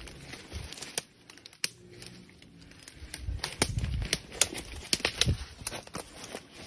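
Leaves and twigs rustling and snapping as someone pushes through dense undergrowth: an irregular run of crackles and clicks that gets busier and louder about three seconds in.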